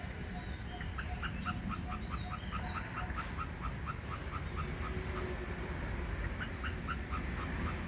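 Treeshrew calling: a rapid string of short, high chirps, about five a second, that thins out midway and picks up again.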